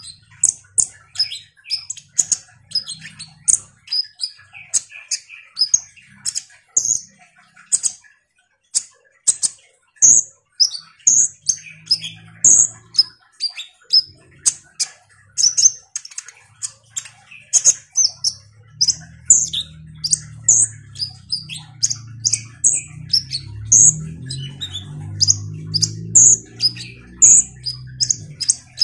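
Male Van Hasselt's sunbird (kolibri ninja) singing hard: a rapid, unbroken run of short, sharp, high chirps and twitters, several a second. A low hum sits underneath, steady from about two-thirds of the way through.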